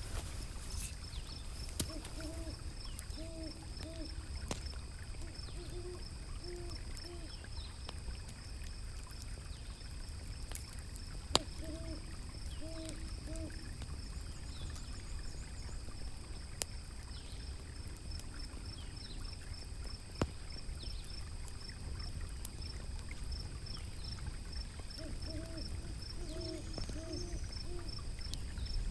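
An owl hooting in short runs of three or four notes, four times, over a steady low rush of river water. A crackling fire pops sharply now and then, loudest about a third of the way in, and a faint high pulse repeats evenly throughout.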